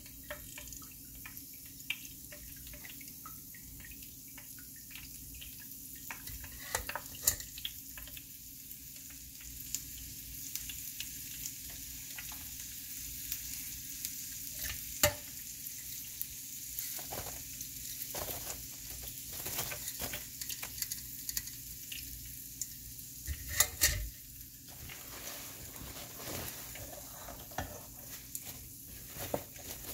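Hot oil sizzling and crackling in a deep fryer around a basket of cut potato fries, with a few sharp metal knocks from the fry basket.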